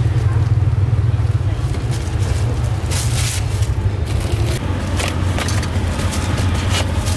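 Steady low rumble of engines from street traffic, with scattered clicks and scrapes of metal utensils and bread being handled on a steel tray.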